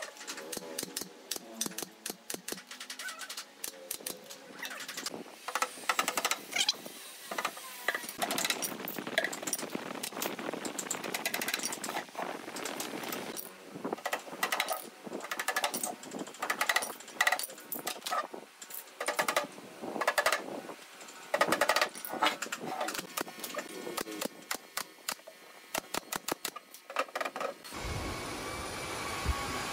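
Hammer and pneumatic nail gun driving nails into wooden drawer panels: a long, irregular series of sharp knocks. Near the end the knocks stop and a steady hum takes over.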